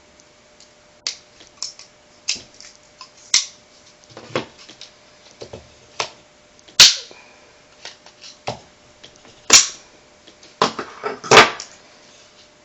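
Irregular sharp clicks and clacks of a Beretta PX4 pistol's polymer frame and small metal parts being handled and worked apart while the hammer spring is removed, with several louder snaps in the second half.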